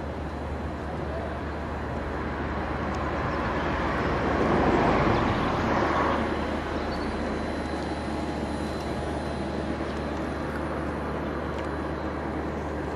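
Steady outdoor traffic rumble, with something passing that swells to its loudest about five seconds in and then fades back.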